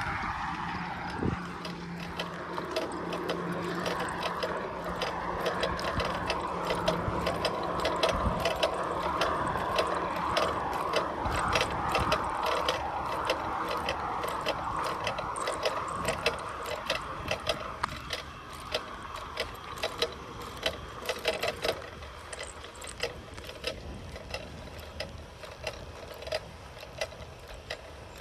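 Bicycle rear freewheel hub ticking in a rapid, continuous stream of clicks as the bike coasts, over a steady rush. The ticking and the rush grow fainter over the last several seconds.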